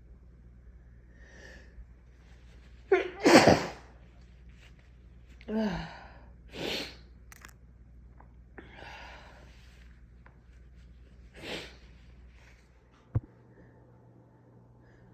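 A person sneezing from allergies: one loud sneeze about three seconds in, then several shorter breathy bursts spread through the rest, and a sharp knock near the end.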